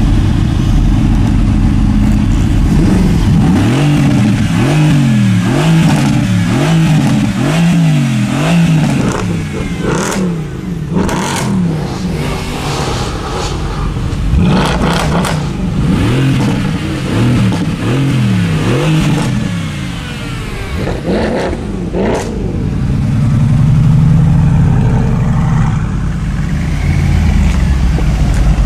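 Mercedes-AMG car engine revved in quick blips, its pitch rising and falling again and again, with a few sharp cracks from the exhaust in between. Near the end it settles into a deeper, steadier rumble.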